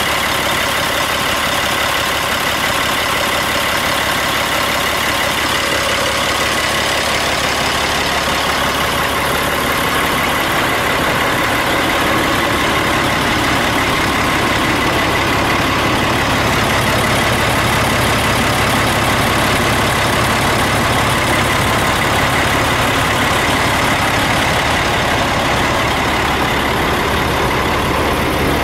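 1998 Peterbilt 385 tractor's heavy diesel engine idling steadily.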